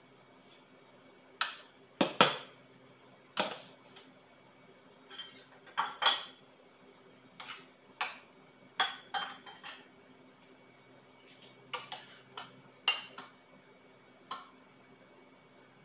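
Utensils clinking and knocking against dishes and a stainless steel bowl: about fifteen sharp, irregular clinks, some ringing briefly, over a faint steady hum.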